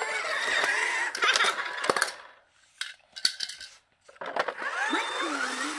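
Die-cast toy cars clinking against each other and the plastic dump bed of a toy dump truck, a scatter of sharp clicks, with a voice at the start and near the end around a short quiet gap.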